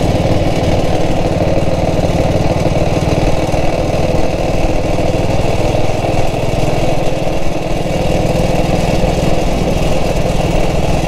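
1947 BSA B31's single-cylinder four-stroke engine running steadily with an even, fast beat and no change in revs.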